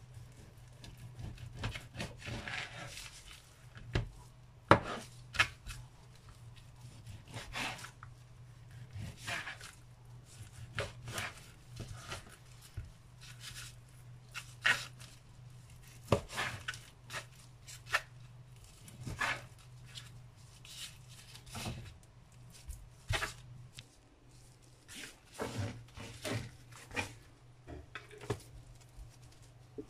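Knife cutting raw pork into small cubes on a plastic cutting mat: irregular strokes of the blade through the meat onto the board, about one every second, over a low steady hum.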